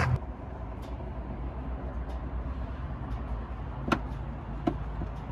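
Dodge Durango R/T's 5.7-litre HEMI V8 idling, heard at the exhaust tips as a steady low rumble, with a few light clicks, the sharpest about four seconds in.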